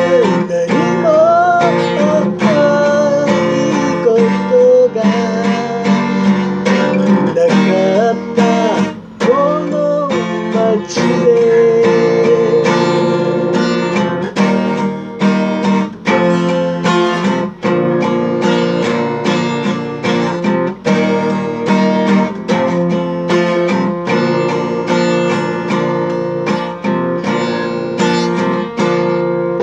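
A man singing to his own strummed acoustic guitar. The singing stops about ten seconds in, and the guitar strumming carries on alone.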